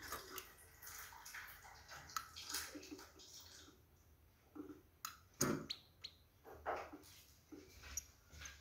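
A caged female European goldfinch gives soft, scattered chirps and twittering calls, the calling of a female in breeding condition. One louder, sharp sound comes about five and a half seconds in.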